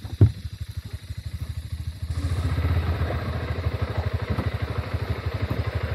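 Honda CB200X's single-cylinder engine running at idle with a fast, even pulsing beat, getting louder from about two seconds in. A sharp click sounds about a quarter second in.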